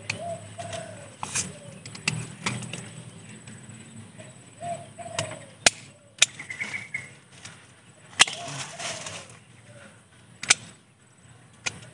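Pruning shears snipping branches off a sancang bonsai: about five sharp single clicks spread through, mostly in the second half. A dove coos in the background.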